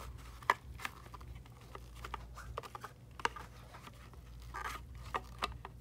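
Scattered light plastic clicks and taps as a clear plastic external ink tank is pushed down and slid into its black plastic holder, the sharpest about half a second in and about three seconds in.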